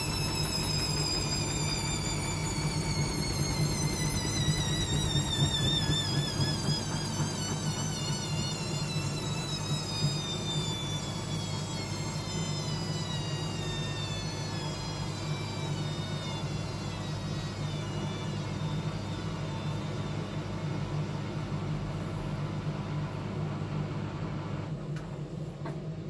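Hoover front-loading washing machine's drum coasting down after a spin: the motor's whine falls steadily in pitch over many seconds, over a steady low hum, and the whine fades out near the end as the drum slows.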